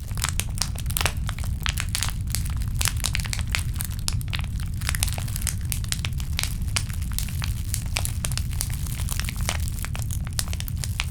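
Imitation campfire crackle made from a plastic PET bottle being squeezed and crinkled: dense, irregular crackling pops over a steady low rumble.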